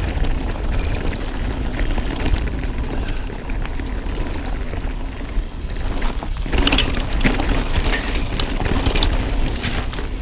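Wind buffeting an action camera's microphone while riding a mountain bike downhill, a steady heavy rumble. From about halfway through, the bike clatters and rattles over rough, rocky trail.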